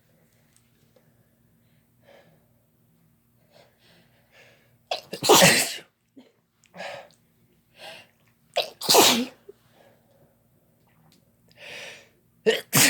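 Repeated human sneezes brought on by chhinkni sneezing snuff. Two loud sneezes come about five and nine seconds in, with softer breaths between them, and two short, sharp ones near the end.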